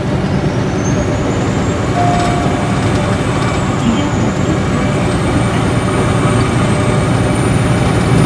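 Interior running sound of a Nissan Diesel Space Arrow RA coach at motorway speed: its inline-six turbo diesel and torque-converter automatic give a steady, heavy rumble under road noise. A thin high whistle climbs over the first second or two and then holds.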